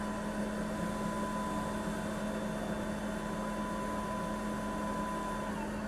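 Forcipol 1V grinder-polisher's platen motor running with a steady whine after start-up, winding down and stopping near the end. A steady low hum runs underneath.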